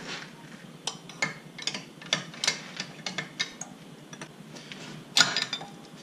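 Metal tool and bolt clicking and clinking as a bolt on a tractor's radiator is worked at by hand: irregular sharp clicks, the loudest about five seconds in.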